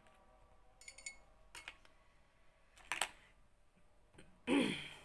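Light kitchen handling sounds: a few scattered clicks and knocks, a short crackle about a second in, and a louder brief scrape or rustle near the end.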